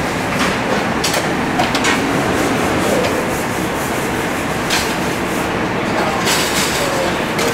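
Pieces of lamb searing in a hot sauté pan: a steady, dense sizzle with a few light clicks and clatters of kitchen utensils.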